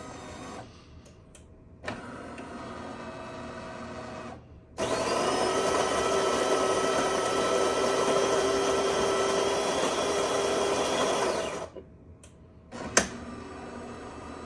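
Built-in Jenn-Air fully automatic coffee machine starting a cup: a click and a quieter mechanical whir, then a much louder steady motor run for about seven seconds, typical of the bean grinder, which stops abruptly, followed by a sharp click near the end.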